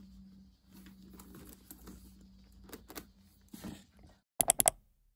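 Faint rustling and light knocks of a quilted leather shoulder bag with a chain strap being handled, over a low steady hum. Near the end comes a quick run of four sharp clicks, the loudest sound, and then the sound cuts off.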